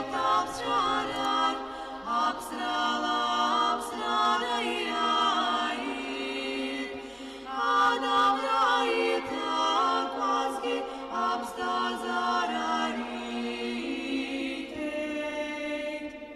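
Vocal music: singing voices over a steady held low note, fading out near the end.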